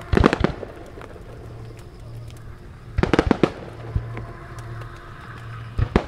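Aerial firework shells bursting overhead in quick clusters of sharp bangs: a burst of several bangs at the start, another cluster about three seconds in, a single bang a second later, and more bangs near the end.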